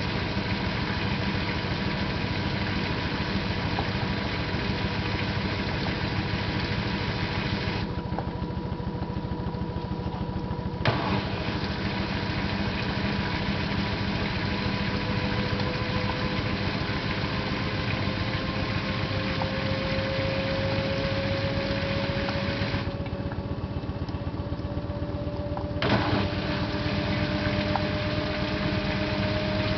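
LG 12B8ND washing machine on its spin cycle: a steady hum with a motor whine that slowly rises in pitch as the drum speeds up. Two sharp clicks about fifteen seconds apart, with a few faint ticks, are the unwanted clicking during spin that the owner traces to the lower right side of the machine. It occurs with the drum loaded, whether lightly or heavily, but not when the drum spins empty.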